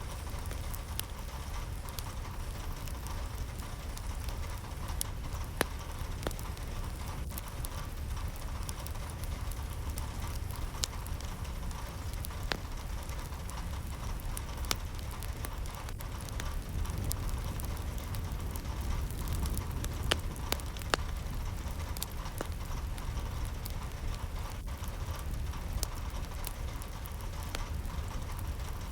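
Steady rain, with scattered sharp taps of individual drops striking a surface over a constant low rumble.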